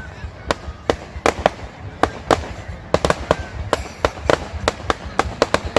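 Fireworks going off in a rapid, irregular string of sharp bangs and crackles, several a second, over a low rumble.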